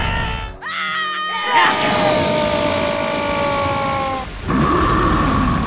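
Cartoon soundtrack music and sound effects. A sudden hit comes about a second and a half in, followed by held tones that slowly sink in pitch, and a new growl-like sound begins near the end.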